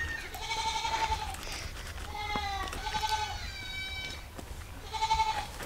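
A goat bleating, several drawn-out calls a second or two apart.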